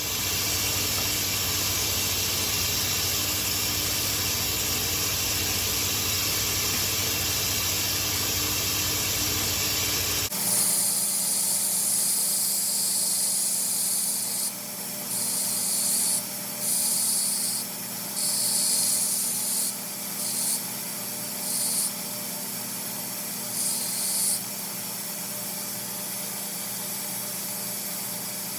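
Belt grinder hollow grinding a steel knife blade on a 10-inch contact wheel, a steady grinding hiss. About ten seconds in the sound changes abruptly to the grinder's motor hum, broken by several short bursts of hiss as the blade is pressed to the belt and lifted off.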